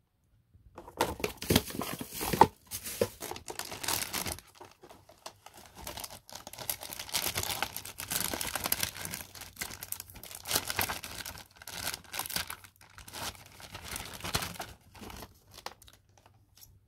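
Plastic wrapping and box packaging crinkling and rustling as a clock radio is lifted out of its box, an irregular run of rustles starting about a second in and stopping just before the end.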